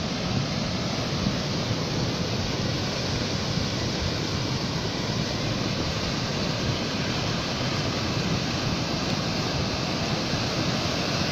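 Steady rushing noise of a muddy flash flood flowing down a dry valley channel, mixed with gusty wind buffeting the microphone.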